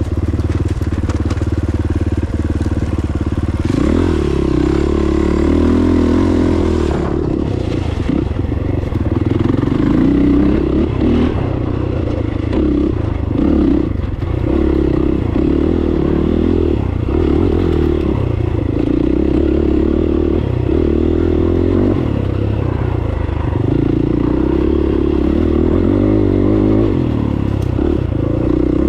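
Dirt bike engine running on a trail, the engine note rising and falling as the throttle opens and closes, with a few sharp knocks along the way.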